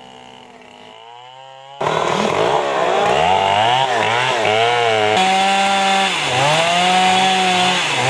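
Two-stroke Stihl chainsaw cutting through a fallen tree, its engine pitch repeatedly dropping as the chain bogs into the wood and rising again as it frees up. A fainter engine hum comes first, and the saw comes in loud about two seconds in.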